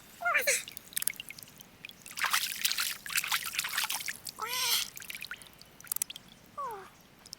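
Three short animal calls, each falling in pitch, with splashing and trickling water between them.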